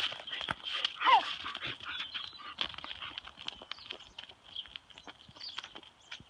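A dog gives one short whine that falls in pitch about a second in, over scattered light clicks and scuffs of paws and hooves on a wet road.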